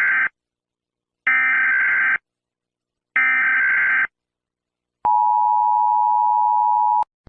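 Emergency Alert System header tones: three identical bursts of digital data tones, about a second each, followed by the two-tone attention signal, held steady for about two seconds before cutting off. They mark the start of a new emergency alert.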